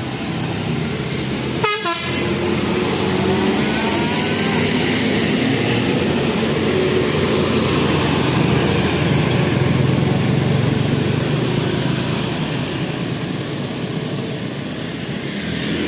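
Large bus's diesel engine running loud and steady close by, with a sharp click a little under two seconds in.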